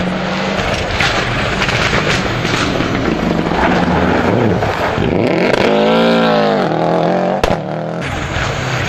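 Subaru Impreza rally car's turbocharged flat-four engine working hard through a tight hairpin and accelerating away, its pitch climbing and then falling through a gear change, with one sharp crack near the end.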